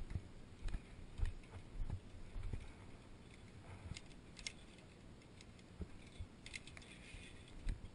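Via ferrata lanyard carabiners clinking and sliding along the steel safety cable, with irregular footsteps and scuffs on rock. Sharper metallic clicks come about four seconds in and again near the end.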